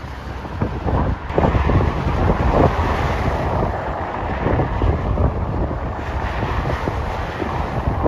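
Wind buffeting the microphone in irregular gusts over a steady rumble, getting louder about a second in.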